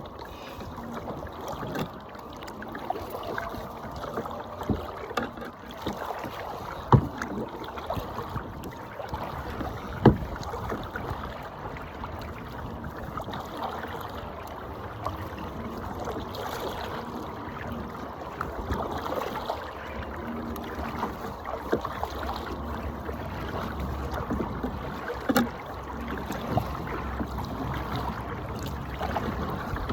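Kayak paddling: the paddle blades dipping and splashing in the water in a steady run of strokes, with a few sharp knocks from the paddle or the hull.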